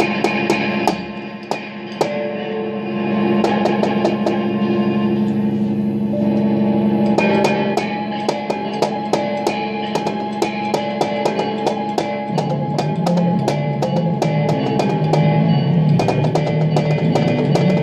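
Improvised electronic music: a sustained, layered drone of held tones under a stream of quick, sharp drumstick hits on a Roland electronic percussion pad. The hits grow denser partway through, and about twelve seconds in the low drone drops to a lower, wavering pitch.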